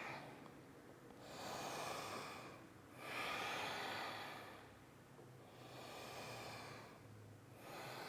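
A woman taking slow, audible breaths, about three long breaths in a row with short pauses between them.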